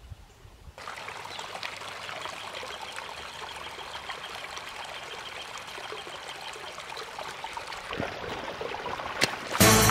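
Shallow creek trickling and splashing over stones, a steady babble that starts about a second in. Music comes in loudly right at the end.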